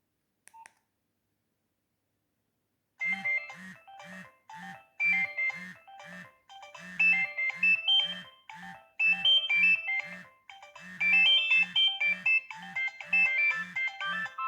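A faint click about half a second in, then from about three seconds in a Nokia 2610 polyphonic ringtone plays: a bright synthesized melody over a steady bass beat of about two notes a second.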